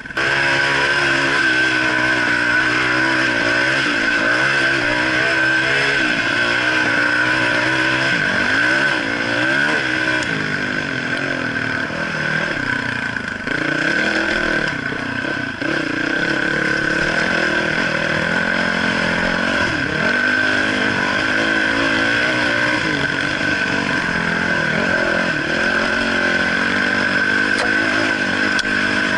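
Dirt bike engine being ridden over rough trail, its pitch rising and falling constantly as the throttle is worked.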